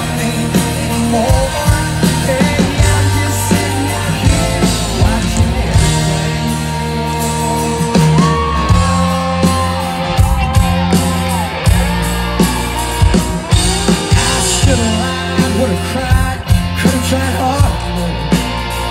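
Live country band playing at full volume with a man singing lead, a drum beat keeping steady time under guitar and keyboards, as heard from the crowd.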